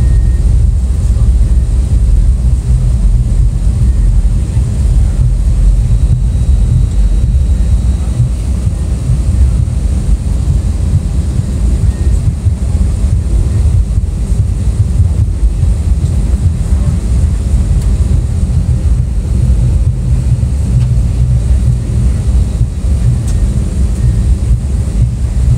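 Airliner cabin noise: a steady low rumble of engines and rushing air, unchanging throughout.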